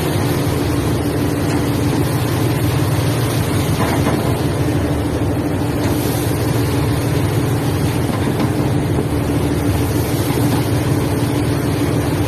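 Steady drone of a ship's engine with a constant low hum, under a continuous rush of wind and seawater washing across the deck as the vessel rolls in heavy seas.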